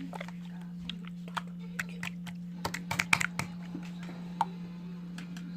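Slime being pressed and worked by hand, giving scattered sticky clicks and pops that come thickest about three seconds in, over a steady low hum.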